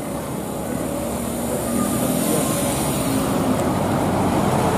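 Diesel engine of a Mercedes-Benz OH 1626 bus running as the bus drives slowly past at close range, growing steadily louder as it nears.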